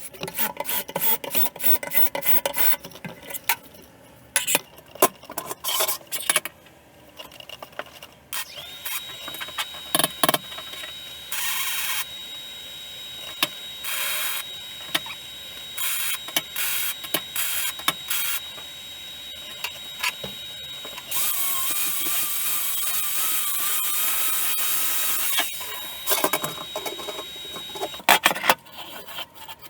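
Tools and metal parts being handled with sharp clicks and knocks, then several short runs of a power tool and one longer run of about four seconds, over a thin steady high whine.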